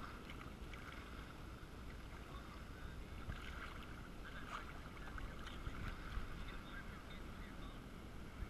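Shallow water lapping and sloshing against a GoPro's waterproof housing at the surface, heard muffled through the case, with small crackling splashes.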